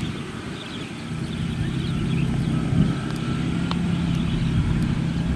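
Kaset Pattana rice combine harvester's engine running steadily while it harvests, a low drone that grows louder about a second in.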